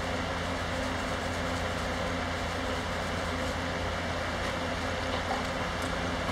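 Electric fan running steadily: a continuous rush of air over a low hum.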